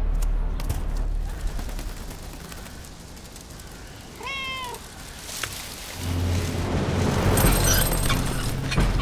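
A cat meows once, a short call about four seconds in. Before it, music fades out; in the last few seconds music swells back in with a rising hiss.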